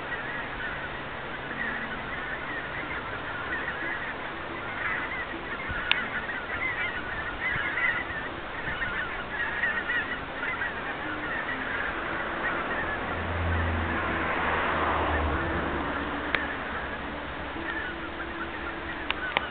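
A large flock of greater white-fronted geese, with some barnacle geese, calling in a dense chorus of overlapping honks as part of the flock lifts off and circles. A low rumble swells and fades about two-thirds of the way through.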